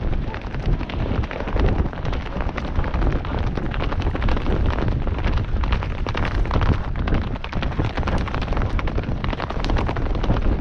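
Heavy wind rumble buffeting a camera microphone carried on a galloping horse, with a constant run of thuds and knocks from the gallop.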